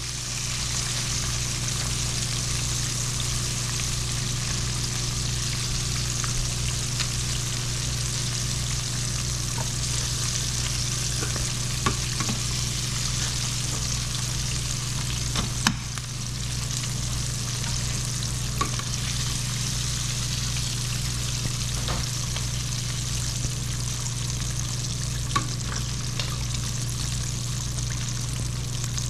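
Floured frog legs frying in hot oil: a steady sizzle with scattered crackles and an occasional sharper pop.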